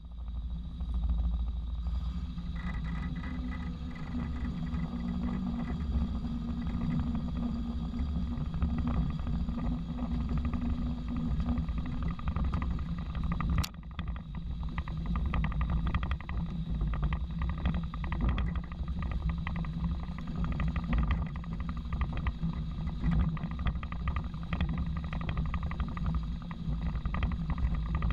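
Heavy farm machinery running with a steady low engine rumble, broken by a sudden cut about halfway through.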